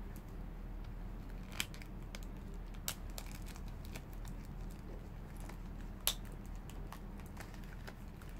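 Small cardboard blind box being picked open by hand: a few sharp clicks and crinkles of card and wrapping, the loudest about six seconds in, over a steady low hum.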